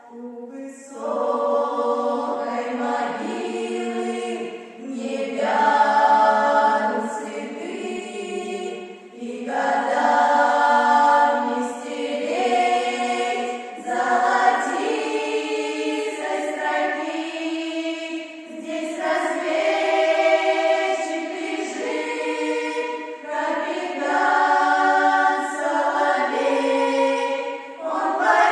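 Choir singing in long sung phrases of a few seconds each, with brief breaks between them.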